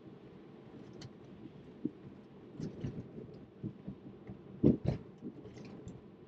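Steady low road and tyre noise inside a Tesla Model 3's cabin while driving, with irregular small knocks and rattles; the loudest pair comes about three-quarters of the way through.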